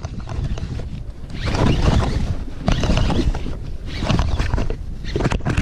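Gusty wind buffeting the microphone, a loud rumbling rush that swells and eases several times.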